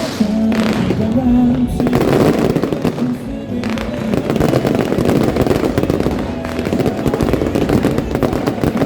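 Fireworks crackling and popping densely over loud music, the crackle thickening about two seconds in.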